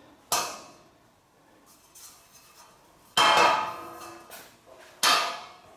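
Galvanised steel roof-truss channels clanking against each other as they are handled and fitted: three metallic knocks, the middle one the loudest and longest, with a short ring.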